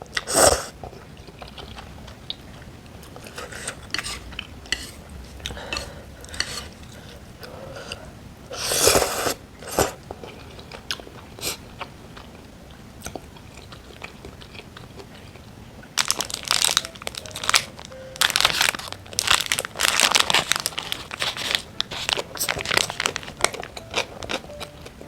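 Close-miked eating: crisp, crunchy bites and chewing, a few separate bites at first, then a dense run of crunching and crackling over the last several seconds.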